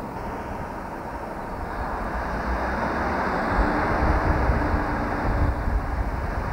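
Class 158 Sprinter diesel multiple unit approaching along the platform. Its running noise grows steadily louder, and a deep rumble comes in about halfway through.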